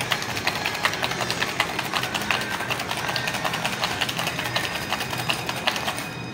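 Ice rattling in a metal cocktail shaker shaken hard and fast, a rapid even rhythm of hits that stops near the end as the shaking ends.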